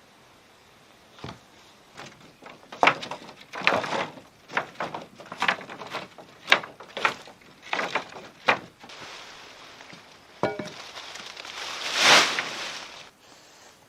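Irregular knocks and clatters of wood being handled or worked, closely spaced for several seconds, then a louder rustling swish a little before the end.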